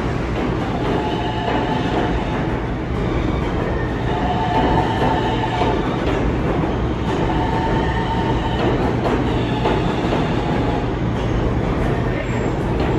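A New York City Subway R160 train pulling into the station along the platform: a steady rumble of wheels on rail, with high tones that come and go every few seconds.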